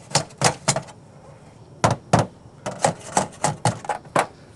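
Hammer tapping a metal roof shingle's bent lip back into place: about a dozen sharp knocks in irregular groups, with a pause of about a second shortly after the start.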